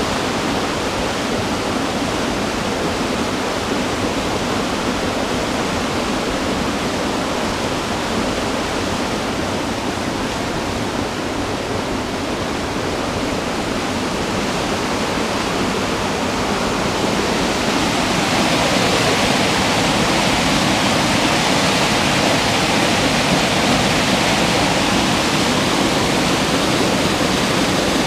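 Waterfall and rocky mountain stream rushing in a steady, even roar, growing louder and brighter about two-thirds of the way through.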